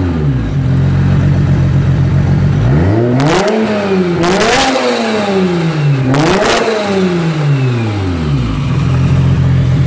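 BMW N54 3.0-litre inline-six, converted to an ON3 single turbo, idling and being blipped three times in quick succession. Each rev peak carries a short, loud burst of rushing noise before the engine drops back to a steady idle. It is running on a stage 2 twin-turbo tune for a first start to build boost pressure and check for leaks.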